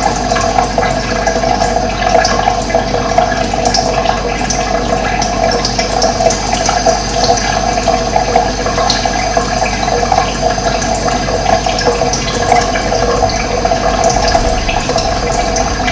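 Running water rushing steadily and evenly, with no break.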